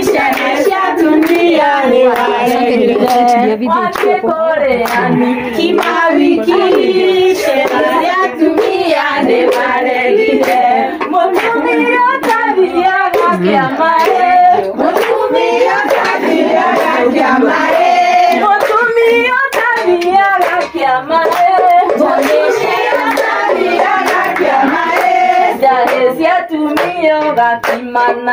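A group of women singing a song together in chorus, with hand clapping in time.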